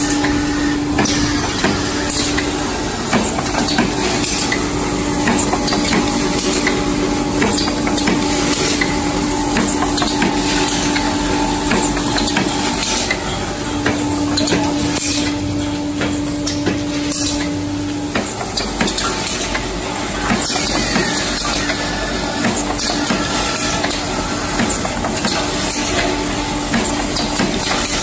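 Aluminium foil container production line running, with the AF-45AT container press and its foil feeder working: irregular metallic clatter over a steady machine hum.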